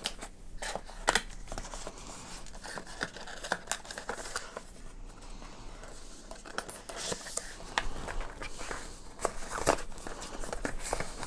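Cardboard inner packaging of a tablet box being handled: flaps and compartment lids are folded and pressed shut, giving scattered light rustles, scrapes and taps of card on card.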